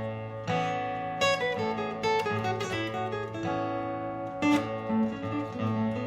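Martin GPCPA4 acoustic-electric guitar playing strummed chords about once a second, over sustained lower guitar notes layered through a looper.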